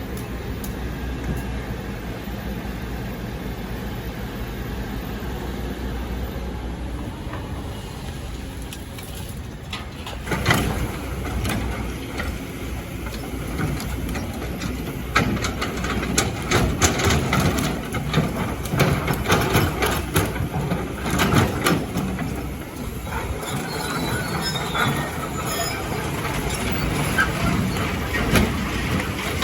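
Excavator's diesel engine running steadily; from about ten seconds in, a long run of knocks, scrapes and clatter as the machine works through sand and rock.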